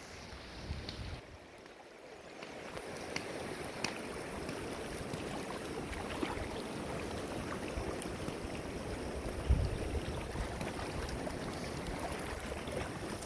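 Shallow river water rushing and rippling over rocks, quieter for the first couple of seconds and then steady, with a few faint clicks and one dull low bump about two-thirds of the way through.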